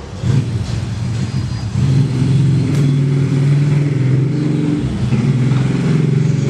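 An engine running with a low, steady hum that grows louder about two seconds in and then holds.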